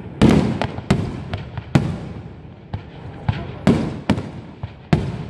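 Aerial firework shells bursting in a display: about six loud bangs at irregular intervals of roughly half a second to two seconds, with smaller reports between them, each bang trailing off in a low rumble.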